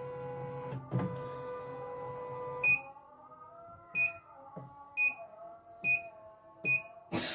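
CNY computerized embroidery machine running with a steady motor hum and low stitching thumps, stopping with a beep about two and a half seconds in. Four more short key beeps follow about a second apart as its control panel is pressed, and a brief rush of noise comes near the end.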